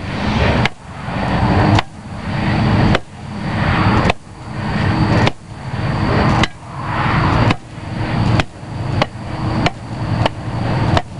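A flat shovel blade striking and packing down loose soil, about one blow a second, the blows coming faster near the end.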